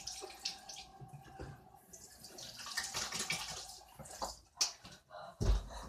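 Water running from a tap and splashing as hands are washed, strongest in the middle, followed by a few sharp knocks near the end.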